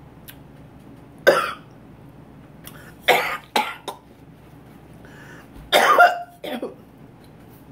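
A woman coughing and clearing her throat in about five short, sharp bursts spread over several seconds, from the burn of the hot sauce she is eating.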